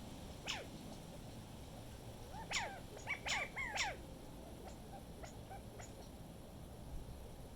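Short animal calls, each falling in pitch: one, then a quick run of about four a couple of seconds later, over a steady low rumble of wind.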